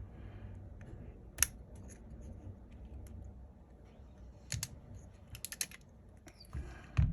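Light, scattered clicks and taps of small repair tools against the parts of an opened iPhone 12 Pro Max: one sharp click about a second and a half in, then a quick run of clicks around five seconds in.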